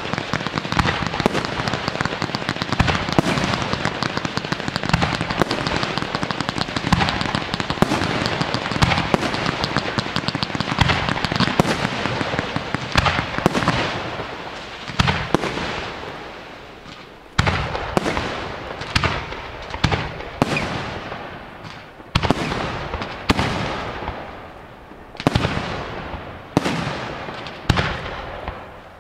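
Professional display fireworks: aerial shells and rising comets going off in a dense, continuous crackling barrage of bangs, which about halfway through thins into separate bangs roughly once a second, each trailing off.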